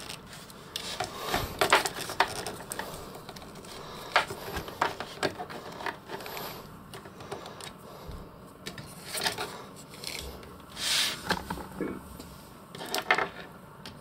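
Plastic Cringer action figure being handled and posed on a tabletop: scattered clicks and light knocks as its leg joints are moved and the figure touches the table.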